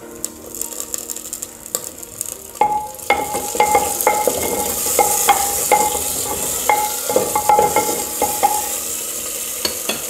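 Onions and fresh tomato slices sizzling in hot oil in a clay cooking pot, stirred with a wooden slotted spoon that knocks and scrapes against the pot's sides. The sizzle grows louder about three seconds in.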